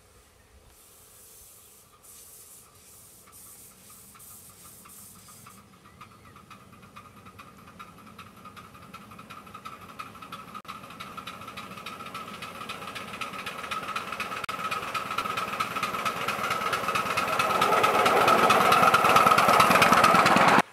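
Miniature steam locomotive approaching and passing close by, its exhaust beating in a rapid, even rhythm with a steady high ringing tone, growing steadily louder until it cuts off suddenly.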